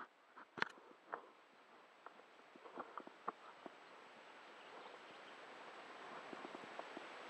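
Faint kayak paddling on calm water: small irregular splashes and knocks from the paddle over the first few seconds, the strongest about half a second in, over a soft hiss that slowly grows louder.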